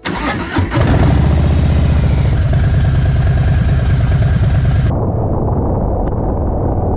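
Harley-Davidson Street Bob 114's V-twin engine running with a low, even pulsing beat, a few sharp clicks in the first second. About five seconds in the higher sounds cut off abruptly, leaving the engine's low beat muffled.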